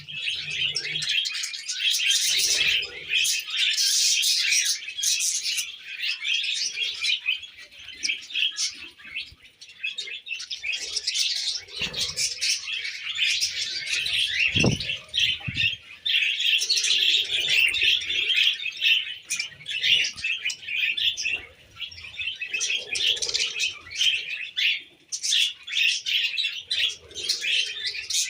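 A group of budgerigars chattering: dense, continuous high chirping and warbling with no pauses.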